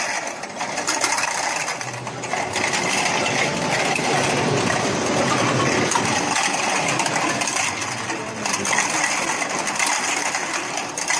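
Rotary bottle unscrambler running: small white plastic bottles clatter continuously against each other and the spinning stainless-steel turntable, a dense rattle of clicks over a steady machine hum.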